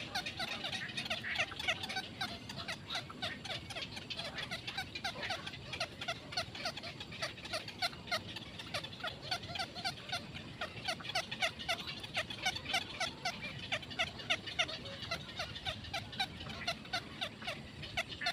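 Black-crowned night heron nestlings chattering at the nest: an unbroken run of short, clicking call notes, several a second, in the begging chatter of young herons.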